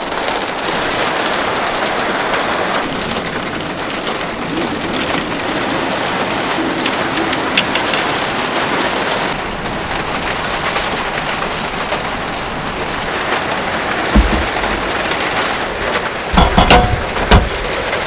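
Heavy rain beating on a car's roof and windows, heard from inside the car as a steady hiss and patter. A few dull thumps come near the end.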